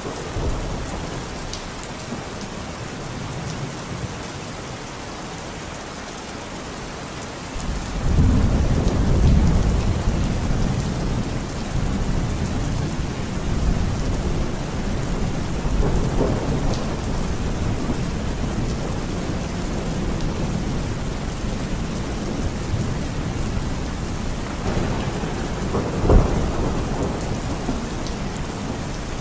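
Heavy rain falling steadily. About eight seconds in, a loud low rumble of thunder comes in and rolls on, swelling again with a sharper crack near the end.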